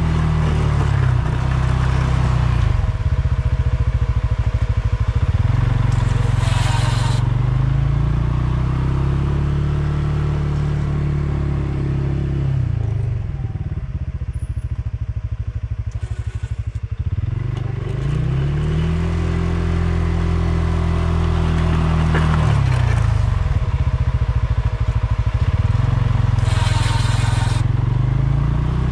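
ATV engine running under load while pushing a snow plow blade, its revs dropping and climbing again several times as it works back and forth. Two short scraping bursts, about seven seconds in and near the end.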